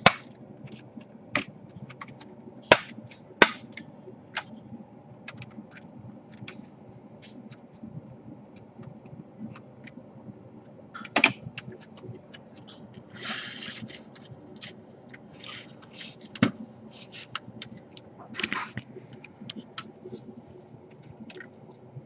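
Plastic clips of a Dell Latitude E5410 laptop's casing snapping loose as it is pried apart with a metal pick: irregular sharp clicks and cracks, with a brief scrape of plastic partway through.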